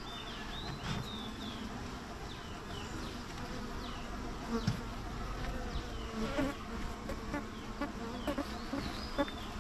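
Honeybees buzzing steadily in and around an opened wooden box hive with its frames exposed.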